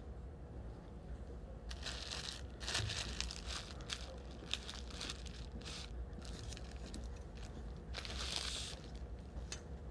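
Crusty bread loaf being pulled apart by hand, its crust crackling in a run of short crackles about two seconds in, lasting a few seconds, then one more brief burst near the end.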